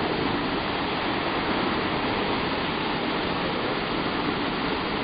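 Tad Fane waterfall: a steady, even rush of falling water.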